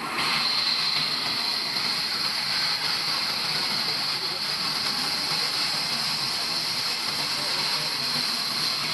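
Sawmill machinery running steadily: an even, unbroken rushing noise with a bright high hiss and no separate strikes.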